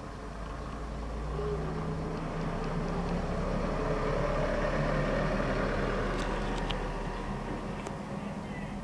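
A passing vehicle, its rushing noise building up and fading away over several seconds, with a few faint ticks near the end.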